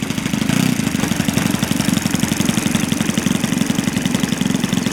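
Engine of a Seagull Gipsy Moth radio-controlled scale model plane running steadily with a rapid, even beat.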